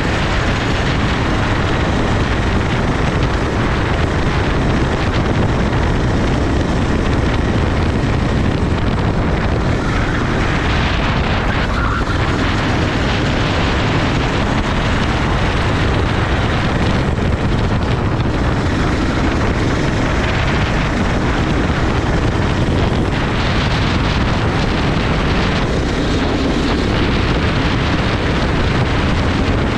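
Go-kart running flat out on the track, its engine noise buried in steady, loud wind buffeting on the microphone.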